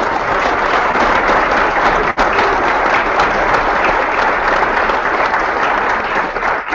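Conference audience applauding: loud, dense, steady clapping that dies away at the very end.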